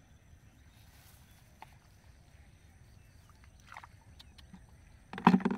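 Faint scattered clicks and scrapes of a hand digging in wet mud, then one short loud burst about five seconds in.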